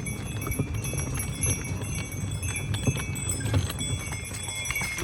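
Hooves of a carriage horse clip-clopping at a walk, with small harness bells ringing steadily over a low rumble.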